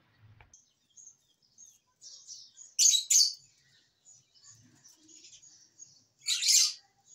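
Budgerigars chirping in a steady high chatter, with loud shrill calls about three seconds in and again about six seconds in.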